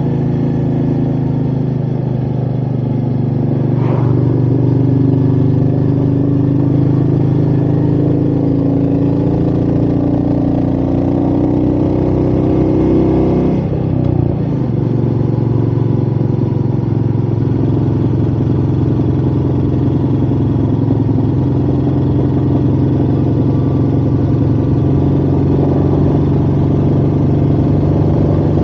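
Royal Enfield Meteor 350's single-cylinder engine pulling under way, its pitch slowly climbing for about ten seconds and then dropping sharply about fourteen seconds in before running steady, with wind rushing past. A brief click about four seconds in.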